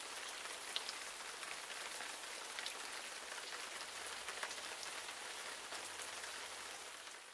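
Young Living Rainstone ultrasonic diffuser running: a steady soft hiss with faint scattered ticks like fine spattering droplets, fading near the end.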